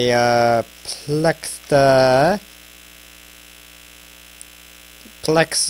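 A man's drawn-out hesitation sounds, like "uhh" and "umm", three times in the first couple of seconds, then a steady electrical hum with no voice until he starts to speak again near the end.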